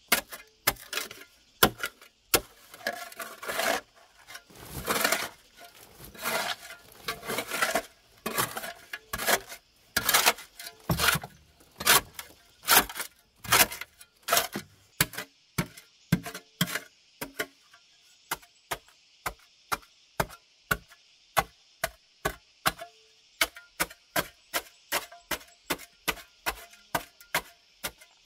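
A small wooden-handled spade chopping into hard clay soil, with repeated sharp strikes of the blade. For the first half the strikes are mixed with scraping and the rustle of loose earth being scooped and thrown. Later they become a steady run of about two strikes a second.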